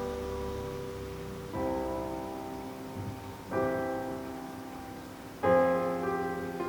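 Slow piano music played through Denon SC-E232 two-way bookshelf speakers: chords struck about every two seconds, each ringing and dying away, the last one the loudest.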